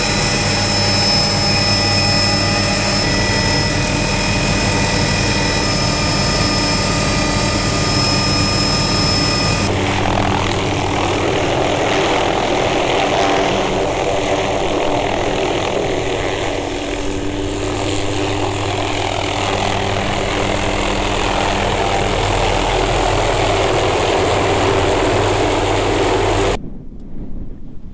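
Small helicopter running: first a steady engine whine with several held tones, then, after a cut about ten seconds in, the helicopter hovering close by with its rotor and engine noise as it sets down a sling load. Near the end the sound drops suddenly to much quieter wind noise.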